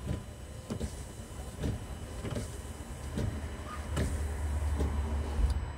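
Windscreen wipers on a Nissan Qashqai sweeping back and forth across the glass, driven by the wiper motor through a newly fitted linkage, with a regular swish about every 0.8 seconds. A low hum grows louder near the end.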